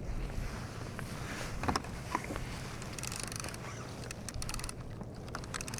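Steady water and wind noise around a sea kayak, with two sharp knocks about two seconds in and several short spells of rapid ticking in the second half.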